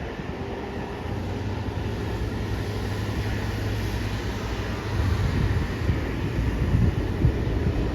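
Jet airliner's engines giving a low, steady rumble as it passes near the runway end, with wind buffeting the microphone, gustier in the second half.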